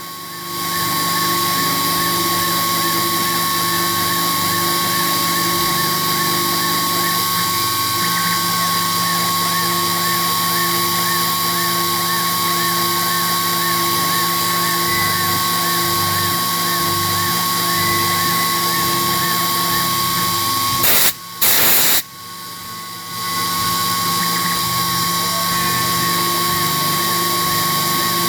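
Sherline benchtop mill spindle running at high speed, around 10,000 RPM, with a tiny carbide cutter in titanium: a steady high-pitched motor whine. Two short, loud bursts of noise cut in a little after two-thirds of the way through.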